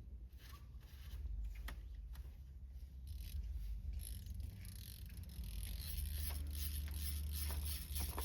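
Scattered light clicks and scrapes of metal parts being handled while the fuel line is fitted to the carburetor, over a low steady rumble.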